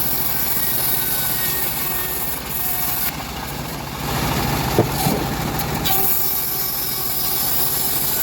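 A homemade bandsaw sawmill running steadily, its motor and blade making a continuous mechanical drone, with two sharp knocks about five seconds in.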